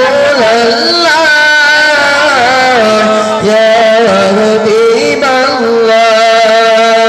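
A man's voice singing an unaccompanied-style Bengali naat through a microphone and PA, drawing out long, ornamented held notes over a steady sustained tone.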